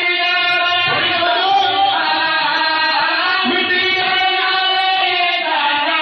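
A man chanting a melodic Muharram majlis recitation in long, held, wavering notes.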